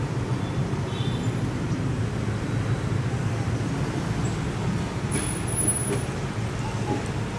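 Steady low rumble of street traffic, with a brief high squeal about five seconds in.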